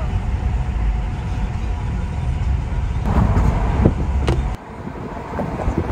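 Road and tyre noise of a moving car heard from inside the cabin, a steady low rumble that drops away suddenly about four and a half seconds in.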